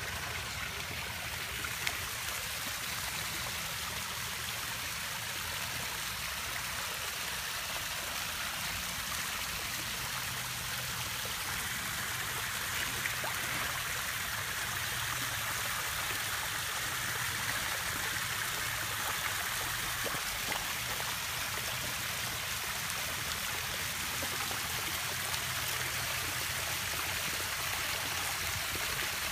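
Steady running and trickling water from a garden pond's waterfall.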